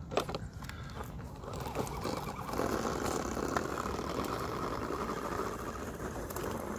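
A few plastic clicks as one RC crawler is set on top of another. Then a steady electric motor and gear whine with tyre crunch on gravel as the 1/10-scale RC rock crawler drives off carrying the second crawler on its back.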